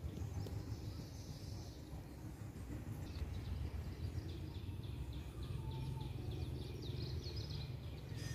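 Outdoor ambience: a low steady rumble, with a quick run of high, evenly repeated chirps starting about three seconds in and stopping near the end.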